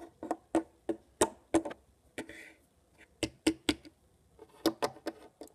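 Toy wolf figurines knocked and hopped along a wooden tabletop: a run of sharp knocks, roughly three a second, in several bursts, with a short scrape a little past two seconds in.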